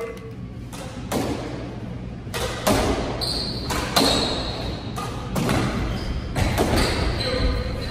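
Squash ball being played in a doubles rally: sharp knocks of the ball off racquets and the court walls, a fraction of a second to a second apart, ringing in the enclosed court, with short high squeaks of shoes on the wooden floor.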